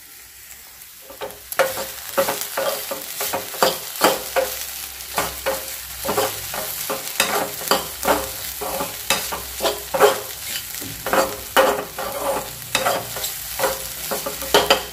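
Steel spoon scraping and knocking against a black pan, stirring scrambled egg with onion and green chilli as it fries with a light sizzle. The stirring starts about a second and a half in and goes on in quick repeated strokes, a couple a second.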